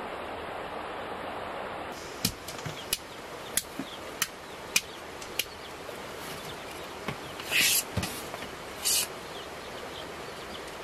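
A steady rushing noise, then a run of six sharp knocks at an even pace of a little under two a second. Two short hissing swishes follow near the end.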